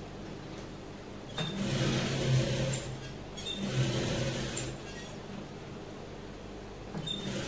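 Electric sewing machine stitching in short runs: it starts about a second and a half in, stops briefly, runs again, pauses for a couple of seconds, then starts again near the end. It is sewing a neck facing onto a top along a marked line.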